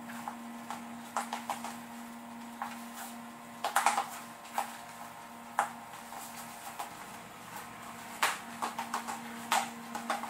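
Leather cowboy boots knocking and scuffing on a hardwood floor as the wearer steps and shifts her feet: irregular sharp taps, a quick cluster about four seconds in and several more near the end, over a steady low hum.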